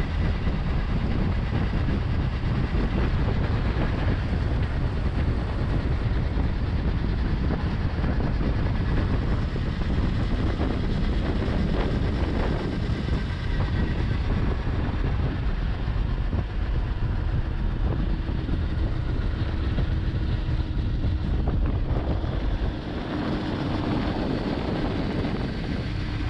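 Wind rushing over the microphone and tyre roar from a supermoto coasting downhill with its engine off, so there is no engine note for most of it. A faint steady hum comes in near the end.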